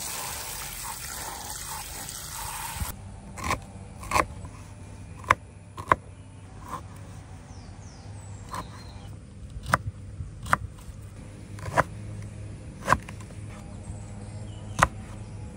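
A hissing rush for about three seconds that cuts off abruptly, then a dozen or so sharp knocks at uneven intervals over a low steady hum.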